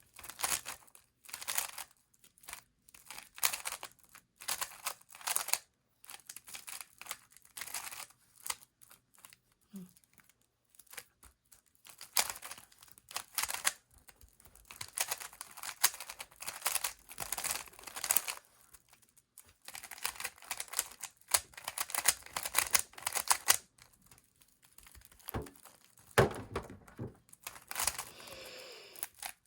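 Plastic Rubik's Cube layers being twisted by hand, a loosely tensioned cube clicking and clacking in quick runs of turns with short pauses between them.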